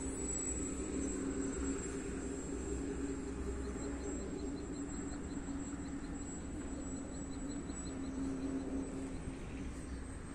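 Electric motor and propeller of a 3D-printed radio-controlled model plane droning in flight, swelling slightly near the start and again near the end as it passes. Insects tick about four times a second through the middle.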